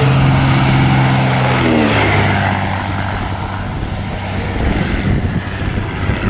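Engine and propeller of a large radio-controlled scale Cessna Bird Dog on a low pass. Its steady drone drops in pitch about two seconds in as it passes overhead, then goes on rougher as it climbs away.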